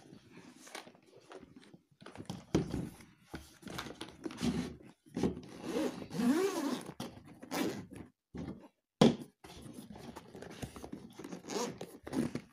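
Zipper on a hard-shell gimbal carrying case being pulled open around the case in a series of scraping zips of uneven length. A sharp knock about nine seconds in is the loudest sound.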